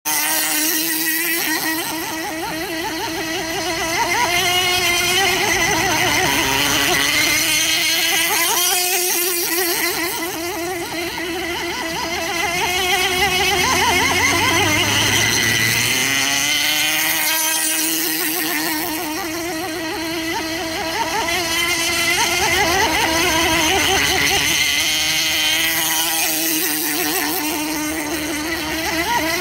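JAE Outrigger radio-controlled boat's Go .28 glow engine running at high revs, a buzzing whine that wavers and glides up and down in pitch. It swells and fades in loudness several times as the boat runs back and forth across the water.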